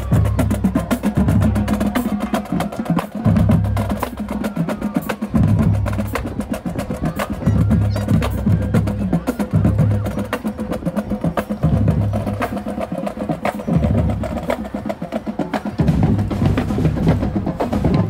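Marching band drumline playing a street cadence: fast snare strokes and rim clicks over repeating groups of low bass drum hits in a steady marching beat.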